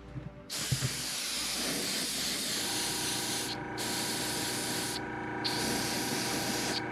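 A paint airbrush spraying onto a crankbait lure body, a steady hiss. It breaks off briefly twice as the trigger is let go. A couple of light knocks come just before the spraying starts.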